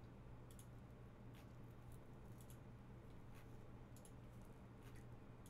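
Faint computer mouse clicks, a short click every half-second to a second, over a low steady hum.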